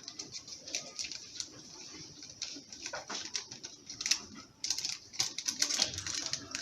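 Irregular light clicks and rustles of ingredients being handled at a mixing bowl, as baking powder sachets are opened and added to cake batter.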